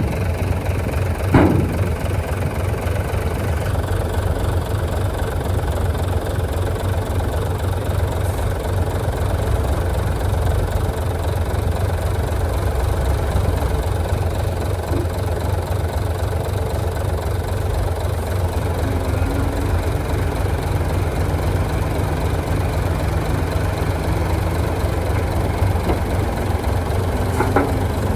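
Bulldozer's heavy diesel engine running steadily with a deep drone. There is a sharp clank about a second in and another near the end, and a higher engine tone joins about two-thirds through, climbing slightly.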